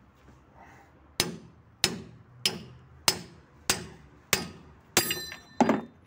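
Hammer striking steel on a KamAZ truck's driveline at the middle axle: eight sharp blows in an even rhythm, about one every two thirds of a second, each ringing briefly. The next-to-last blow rings clearly and the last is duller and heavier.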